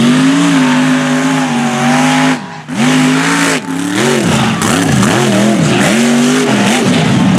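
Mega truck engine at full throttle, held at high revs for about two seconds, cut off briefly, then revving up and down repeatedly in quick swells as the truck races and bounces over the dirt track.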